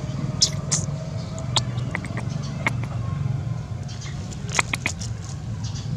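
Dry twigs and brush crackling and snapping in scattered sharp clicks as a puppy pushes its head into them. A steady low hum runs underneath.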